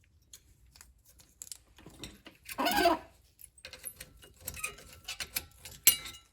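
Small metal brake parts clinking and rattling as the old rear brake pads and shims are worked off the caliper bracket, with a longer, louder scraping rattle about two and a half seconds in and a sharp click near the end.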